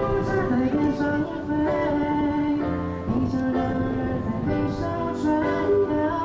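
Live pop band performance: a male vocalist singing long held, gliding notes into a microphone over keyboard and band accompaniment, heard through the concert PA.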